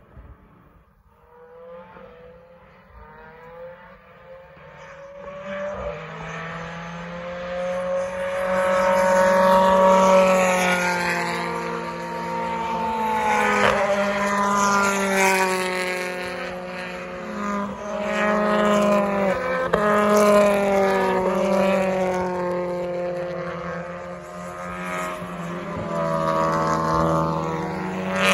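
BTCC touring cars' turbocharged engines coming up and passing at racing speed, faint at first and getting loud, the note climbing through each gear and dropping back at each upshift. A few sharp cracks from the exhaust are heard in the loudest stretch.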